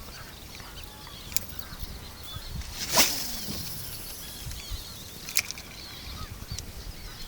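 Small birds chirping outdoors, with one loud sudden noise about three seconds in and two fainter clicks, one before and one after it.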